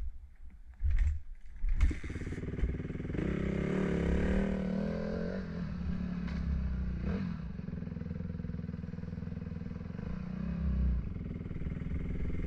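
Dirt bike engine coming in with two sharp bursts about a second and two seconds in, then revving up as the bike pulls away and running steadily at low trail speed.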